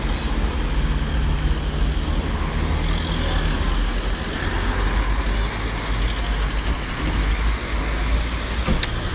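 Road traffic: cars passing with steady engine and tyre noise, and a truck's engine humming close by during the first few seconds as it passes right by.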